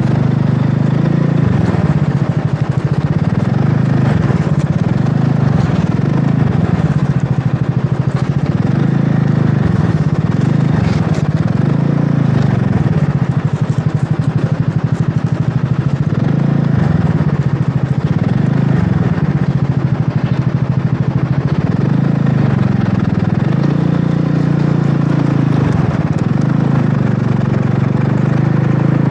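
Wolf Rugby 150cc scooter's engine running at low speed, its pitch rising and falling every couple of seconds as the throttle is eased on and off.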